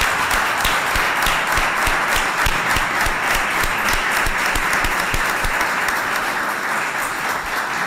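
An audience applauding, many hands clapping in a steady dense patter that eases slightly near the end.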